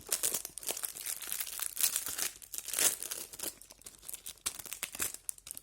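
Packaging being handled and worked open by hand: irregular crinkling crackles of wrapping and tape.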